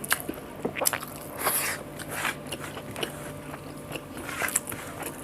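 A person eating a mouthful of rice with omelette and coriander chutney close to the microphone: chewing with irregular wet mouth clicks.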